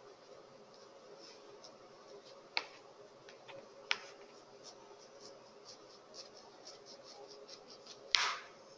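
Fingers peeling a blood orange by hand: faint picking and scratching at the rind, two sharp clicks, and a short louder tearing sound near the end as a piece of peel comes away.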